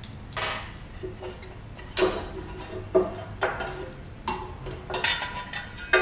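A screwdriver and small screws clinking and tapping against the metal body of a home-built espresso machine as a cover is unscrewed: about seven separate sharp metallic knocks, some ringing briefly.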